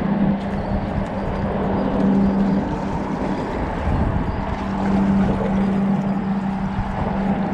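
Wind rumbling on the microphone with water noise, under a steady low engine-like hum that drops out about three seconds in and returns a second or so later.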